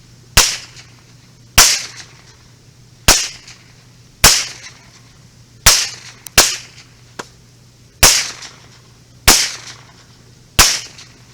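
Nine single .22 Long Rifle shots from an AR-15 with a CMMG .22LR conversion kit, fired semi-automatically about one every second and a half, two of them in quick succession near the middle.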